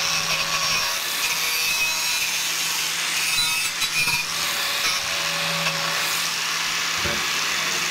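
Electric angle grinder running against a steel tube: a steady, unbroken grinding rush over the constant hum of its motor.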